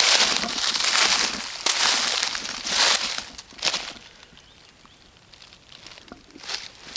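Footsteps crunching through dry fallen leaves for about the first three seconds, a pause of about two seconds in the middle, then the steps start again near the end.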